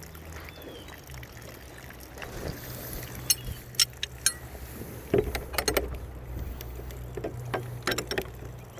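Metal tools clinking against a brass padlock as the combination wrenches are handled and set in place: a handful of sharp metallic clacks with a brief ringing, in clusters, over a low steady hum.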